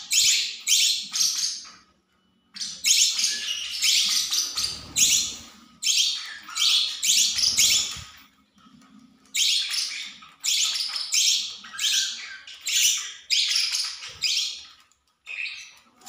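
Small pet parrots (budgerigars and peach-faced lovebirds) giving harsh, rapid squawking calls, in runs of short, loud, high calls broken by brief pauses.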